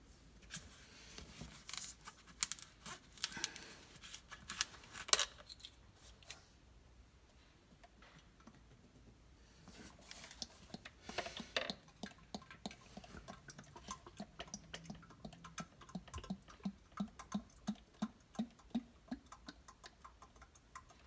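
Plastic motor-oil jugs handled and uncapped, with scattered clicks and rattles. In the second half, engine oil glugs out of a jug into a plastic funnel at about two to three glugs a second.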